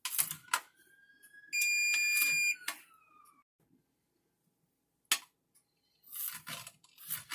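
Chef's knife mincing garlic on a cutting board: a few separate sharp knocks, then a quick run of chopping taps near the end. A single steady electronic beep, about a second long, sounds a couple of seconds in.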